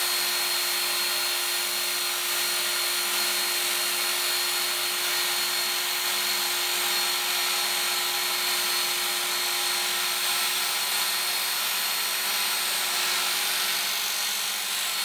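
Work Sharp Ken Onion belt knife sharpener running steadily, its abrasive belt grinding along a machete blade drawn through the guide. A constant motor whine under an even hiss.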